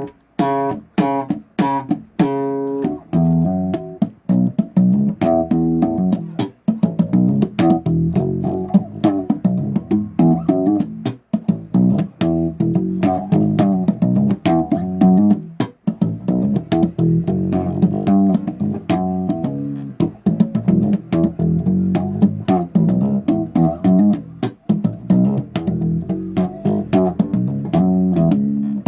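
Bass guitar riffing: a steady stream of quick plucked notes with sharp attacks.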